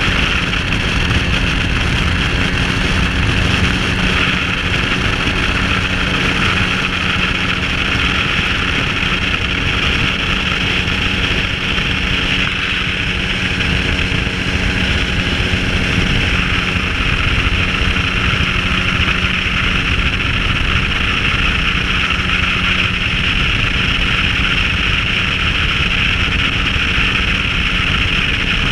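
Flexwing microlight trike in steady cruise: its engine and propeller drone evenly, mixed with wind rushing over the microphone.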